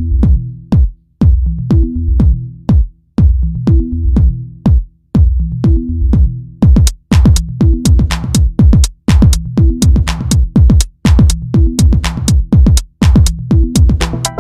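Electronic dance music with a steady drum-machine beat over a repeating deep bass line; brighter, busier percussion joins about six or seven seconds in.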